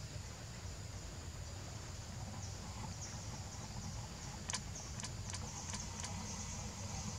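Insects droning steadily in a high, pulsing chorus over a low background rumble. About halfway through comes a quick run of about six sharp clicks.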